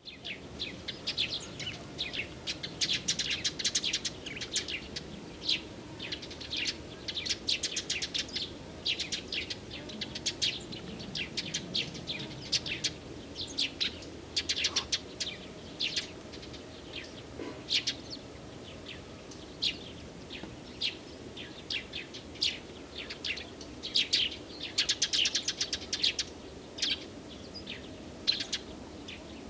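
Small songbirds chirping and singing busily, with many quick sharp chirps and a few dense rapid trills, over a faint steady background hiss.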